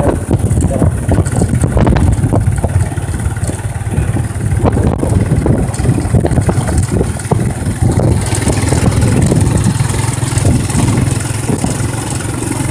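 A motor vehicle's engine running steadily while travelling along a rough dirt track, with frequent knocks and rattles from the bumps.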